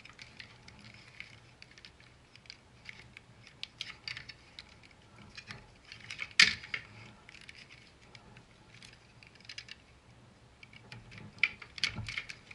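Hard plastic parts of a Transformers Megatron figure and its DX9 add-on being handled and pressed together: scattered light clicks and taps, a sharp snap about six seconds in, and a quick run of clicks near the end.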